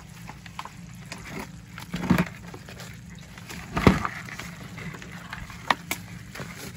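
Scattered wet knocks and clicks as crabs and fish are handled on a wet floor, the loudest about four seconds in, over a steady low hum.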